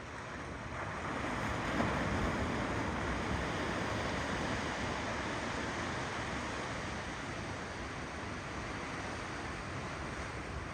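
Ocean waves rolling and breaking in a steady wash of surf, swelling to a peak about two seconds in and then slowly easing off.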